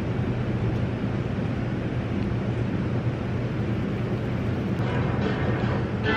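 Café room tone: a steady low hum with an even background noise, with faint music coming in about five seconds in.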